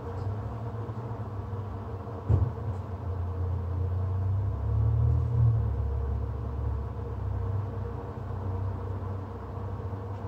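Low rumble that swells and fades over several seconds, with a single sharp knock about two seconds in, over a faint steady hum.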